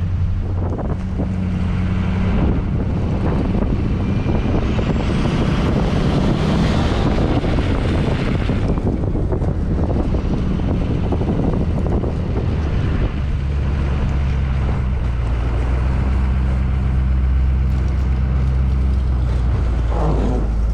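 Truck engine running while driving, under steady road and wind noise; the engine's low hum deepens and grows stronger about two-thirds of the way through.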